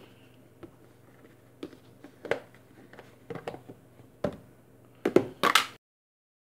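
Hands handling plastic food containers and a small coffee pot on a kitchen counter: scattered taps, clicks and knocks of plastic, a few seconds apart, the loudest cluster just before the sound cuts off abruptly near the end.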